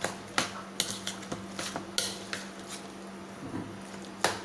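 Metal spoon stirring and mashing a moist eggplant bharit mixture in a bowl, clinking and scraping against the bowl's sides in irregular taps. The sharpest knocks come right at the start, about two seconds in, and near the end.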